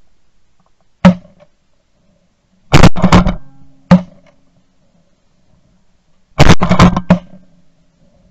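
Shotgun blasts from duck hunters firing at ducks in flight. There is a single shot about a second in, a quick volley of three or four shots around three seconds, another single shot near four seconds, and a second volley of about four shots near the end.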